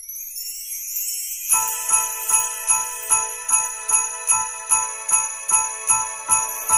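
Christmas music intro: a rising shimmer of sleigh bells, then from about a second and a half in, jingle bells shaken in a steady beat, about two and a half strokes a second, over held bell-like tones.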